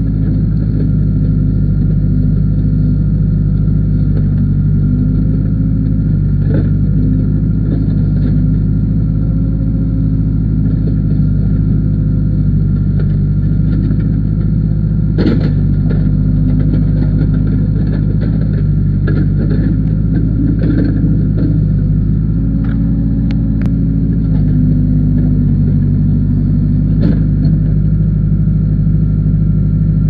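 Case backhoe loader's diesel engine running steadily as the backhoe is worked, its note shifting briefly about two-thirds through. Several sharp knocks cut in, the loudest about halfway through.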